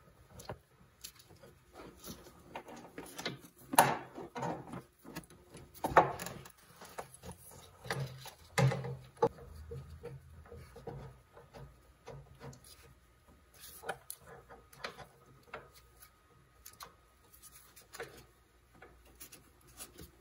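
Polaris snowmobile chain-case drive chain being fitted over its sprockets by hand: irregular clinks, rattles and knocks of the metal links and sprockets, loudest about 4 and 6 seconds in.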